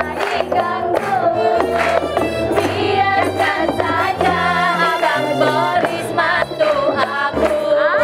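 Women's rebana group singing a song together, led by one voice on a microphone, with hand-beaten frame drums keeping a steady beat over a bass line.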